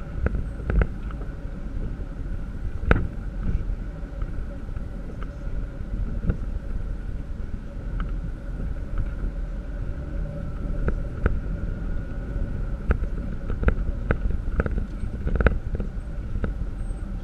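4x4 driving slowly over a bumpy dirt trail, heard from inside the cab: a steady low engine and road noise with a faint hum, and scattered knocks and rattles as the body and suspension jolt over bumps, the loudest about three seconds in.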